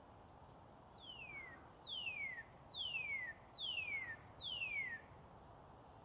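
Male northern cardinal singing a phrase of five clear whistles, each sliding down in pitch, starting about a second in. The first whistle is fainter than the other four.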